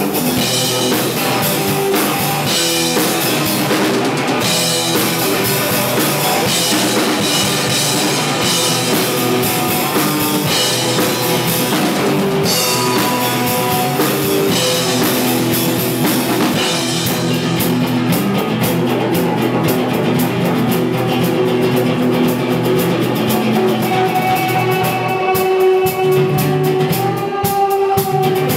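Live rock band playing an instrumental passage: acoustic and electric guitars over a Pearl drum kit. About halfway through, the drums switch to a rapid ticking cymbal pattern.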